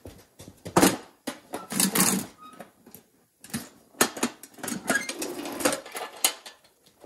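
Metal toolbox set down on a concrete floor and opened, with sharp clanks from the box and lid and the tools inside rattling. There are loud knocks about a second and two seconds in, then a run of clattering a few seconds later as the box is opened.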